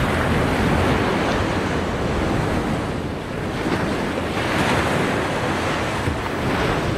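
Wind gusting across the microphone over a rough sea, with waves rushing and breaking in a steady noise.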